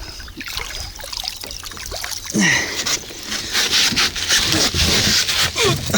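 Water splashing and churning as a hooked northern pike thrashes at the surface. The splashing starts loud a couple of seconds in and keeps going in a quick run of splashes.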